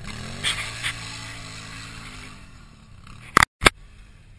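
ATV (quad bike) engine running past, its pitch falling as it pulls away. There are two sharp knocks in the first second. About three and a half seconds in, two loud clicks come with a brief dropout of sound between them.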